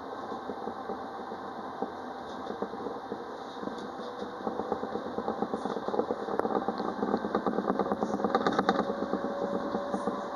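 Alstom Citadis Dualis tram-train running along the track, heard from inside the driver's cab: steady running noise with a dense fine rattle that grows louder in the second half, over a faint steady whine that rises slightly near the end.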